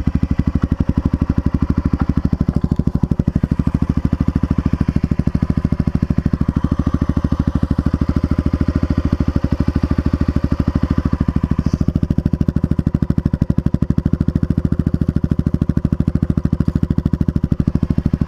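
Honda XR650L's single-cylinder engine idling steadily, in an even, regular pulse.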